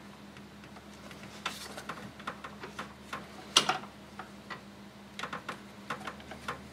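Scattered sharp clicks and knocks, with one louder knock a little past the middle, as the coolant overflow tube is worked loose from the radiator fan assembly by hand.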